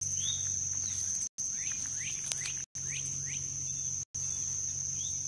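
Steady high-pitched insect drone with a handful of short high chirps scattered through it. The sound cuts out completely for a moment three times, about every second and a half.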